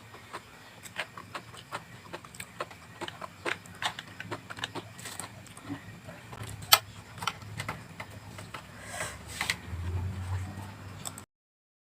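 Close-miked chewing of vegetables: many irregular wet crunches and mouth clicks, with one sharp crunch louder than the rest partway through. The sound cuts off abruptly near the end.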